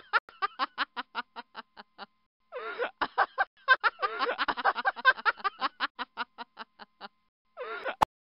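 A woman laughing in two long runs of quick, staccato bursts, each run fading away, followed by a short burst of laughter. A single sharp click or knock comes right at the end.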